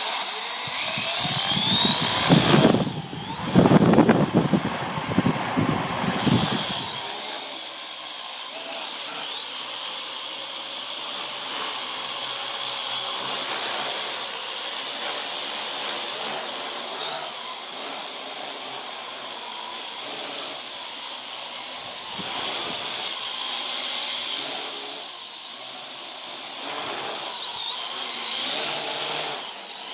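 Parrot AR.Drone quadcopter's four electric motors and propellers whining as it lifts off and flies. For the first several seconds, gusty rumbling from the rotor downwash buffets the microphone. After that the whine holds steady, its pitch shifting now and then as the drone manoeuvres.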